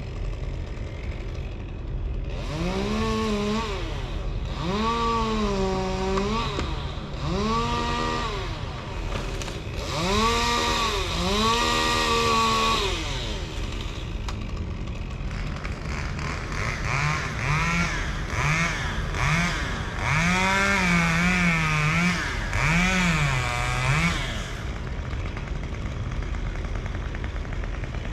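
Chainsaw revved in short, repeated bursts, each rising in pitch and then sagging, over a steady low engine hum. The bursts come in two runs of about five or six, with a pause of a few seconds between them.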